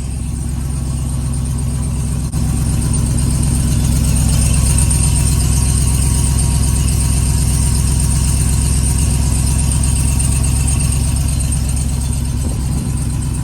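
Ram TRX's supercharged 6.2-litre V8 idling steadily after a cold start, with a rattle from underneath that the owner suspects may be a loose skid plate. A single short knock comes about two seconds in.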